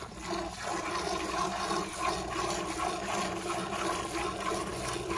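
Buffalo being milked by hand: streams of milk squirting into a steel bucket already partly full of milk, a steady, rhythmic hiss and splash.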